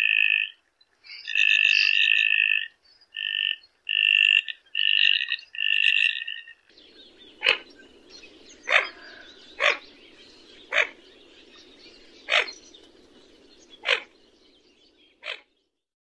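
Common goldeneye calls: first about six buzzy, two-toned calls, each near a second long. Then, over a low steady background noise, seven short sharp calls a second or so apart.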